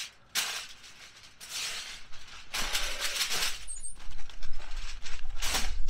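Sheets of aluminum foil crinkling and rustling in several bursts as they are handled and folded around a smoked pork butt, double-wrapping it in foil. A low rumble builds under the crinkling in the second half.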